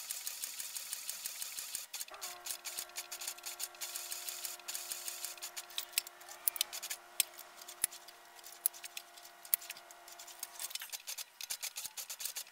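Industrial sewing machine stitching leather: a fast, even stitching rhythm for about two seconds, then a steady hum with slow, separate clicks until near the end, when the fast stitching resumes.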